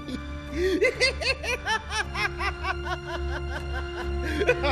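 A man laughing mockingly in a long run of short laughs that climb in pitch, over sustained dramatic background music.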